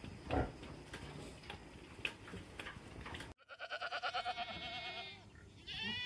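Billy goat bleating: one long quavering call, then a second call starting near the end. Before it there are a few faint knocks and rustles, cut off suddenly.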